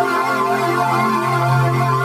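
Sustained synthesizer chord drone, a steady held chord with a low bass tone beneath and a slight waver in the upper notes.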